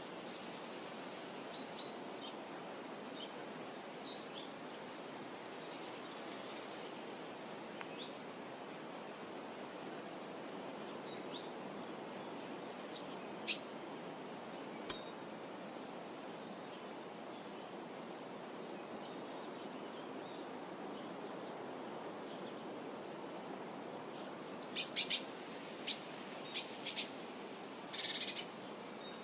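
A steady, soft wash of gently rippling sea water, with small birds chirping now and then. Near the end comes a quick run of louder, sharp bird calls.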